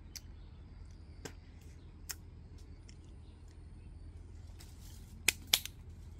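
A few faint clicks, then two sharp snaps close together near the end, like dry twigs cracking underfoot.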